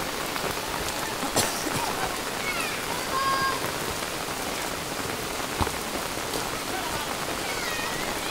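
Heavy rain pouring steadily. Two sharp knocks cut through it, about a second and a half in and again a little after five seconds.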